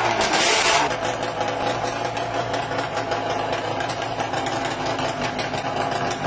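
Classic Yamaha racing motorcycle engine coming down off a rev in the first second, then idling steadily.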